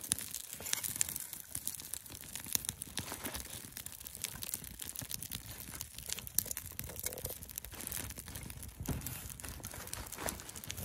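Small fire of bark, dry twigs and split kindling crackling as it catches, with irregular sharp snaps and pops throughout.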